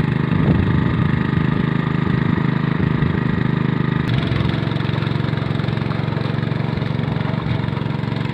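Hand tractor engine driving a rice-paddy rotavator, running steadily. A click about four seconds in, after which it runs a little quieter.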